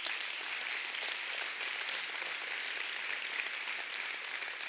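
Church congregation applauding steadily, many hands clapping at once.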